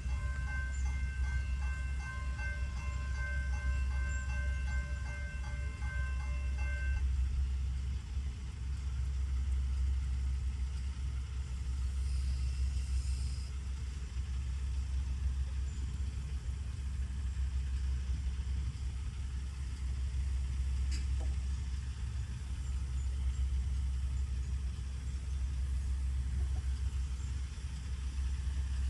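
Railroad crossing bell ringing in a fast repeating pattern while the gate arms lower, stopping about seven seconds in once the gates are down. A steady low rumble runs underneath throughout.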